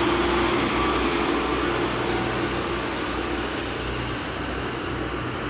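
A motor running steadily: a low hum under a rushing noise, easing slightly in level partway through.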